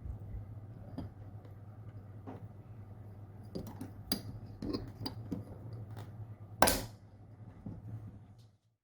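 Light clinks and taps of tableware being handled, with one louder knock about two-thirds of the way in, over a steady low hum; the sound cuts off shortly before the end.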